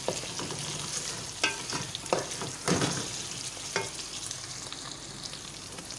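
Mutton pieces with browned onions and ginger-garlic paste sizzling in oil in a metal pot, being fried (bhuna) to cook off the raw ginger-garlic. A spoon stirs through them, scraping and knocking against the pot several times.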